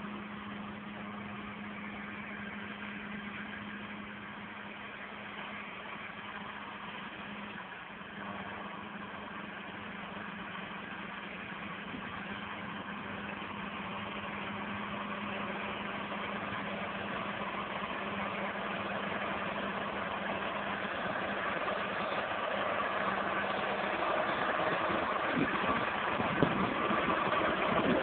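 Farm tractor's diesel engine running steadily under load as it pulls a land leveler across the soil, getting steadily louder as the red Case IH MX tractor draws near and passes close by.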